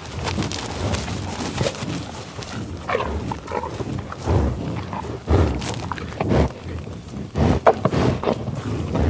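American bison grunting and sniffing: a series of low grunts and breaths at irregular intervals, roughly one a second.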